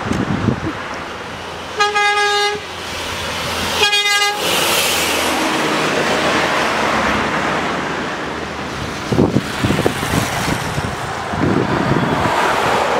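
Telolet bus horn sounding two short pitched blasts, one about two seconds in and a shorter one about four seconds in, over the road noise of passing traffic.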